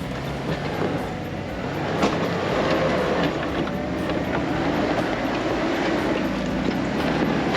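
Off-road Jeep engine running at low speed while crawling over rocks, with a few sharp knocks, the loudest about two seconds in.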